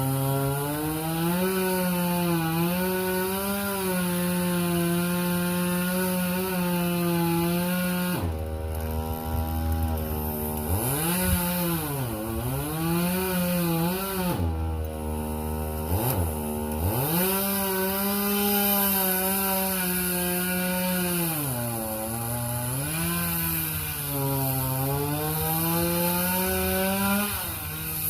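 Two-stroke chainsaw running at high revs while cutting through dead oak, the engine pitch dropping and recovering again and again as the chain bogs under load in the wood, with the deepest dips in the middle stretch.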